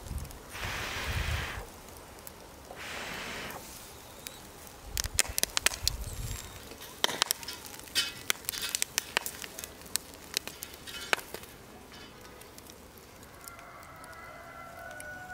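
Charcoal fire crackling under corn cobs on a grill, with many sharp pops and snaps from about five seconds in. Two brief rushes of noise come in the first few seconds.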